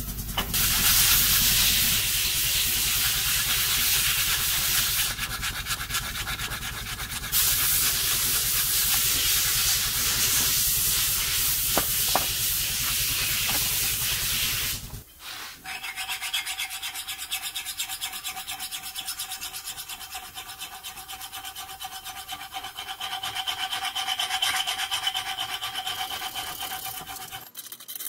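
Steel of an M7 bayonet being abraded by hand in a vise: continuous rapid rubbing and scraping of an abrasive over the metal. Around the middle the sound changes to a thinner scrape with a faint metallic ring.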